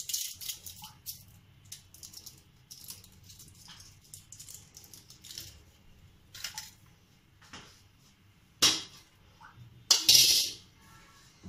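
Kitchen handling sounds: a run of short, scratchy rustles, then two loud clatters near the end as a flat metal grater is set down on the counter.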